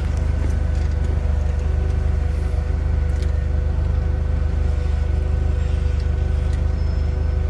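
Vehicle engine idling steadily, a low even rumble heard from inside the cab.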